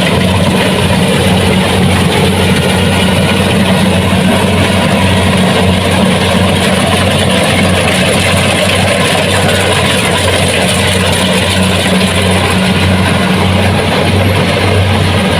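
Kubota DC-70 Plus combine harvester's diesel engine running steadily, with a deep, even hum under a dense mechanical rush from the machine.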